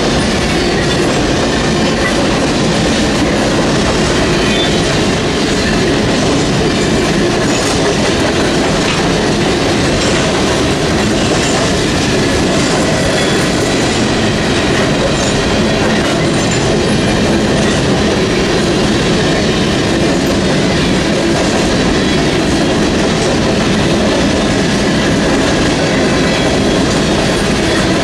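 Covered hopper cars of a freight train rolling past: a loud, steady rumble with the clickety-clack of wheels over the rail, and the crossing's electronic bell ringing.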